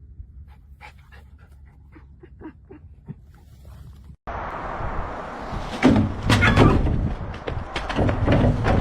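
A dog panting in quick, soft, short breaths. About four seconds in there is an abrupt cut to a much louder stretch of rushing noise with several sharp knocks.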